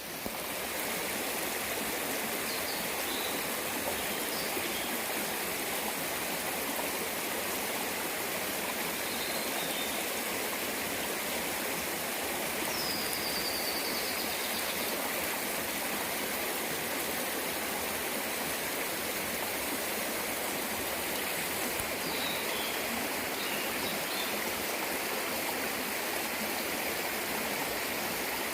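Mountain stream rushing steadily, with a few short, faint bird calls scattered over it, including one brief falling trill about halfway through.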